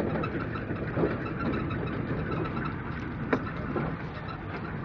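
A vehicle engine running steadily under a low hum, with two faint clicks, about a second in and past the middle.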